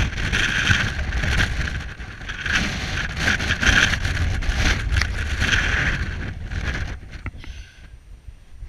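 Wind buffeting the microphone in loud, surging gusts, easing off about seven seconds in.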